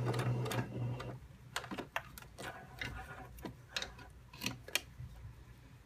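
Electric domestic sewing machine stitching, which stops about a second in. Scattered light clicks and taps follow as the fabric is handled at the machine.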